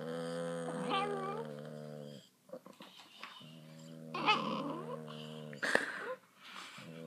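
A small pug-type dog making a low, steady 'rrrr' rumble in her throat, like a motorboat, in three long stretches with short breaks.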